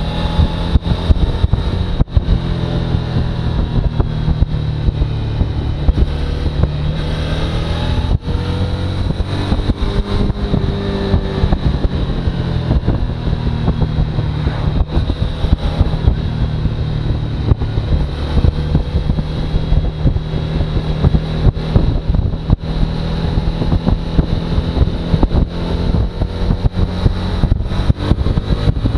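Suzuki V-Strom motorcycle engine running under way, its pitch rising and falling gently, with wind noise and frequent crackles on the microphone.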